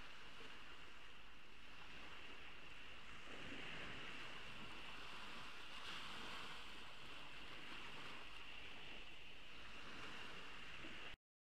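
Ocean waves washing onto a beach: a steady, soft wash that swells gently a few times, then the audio cuts off suddenly to dead silence near the end.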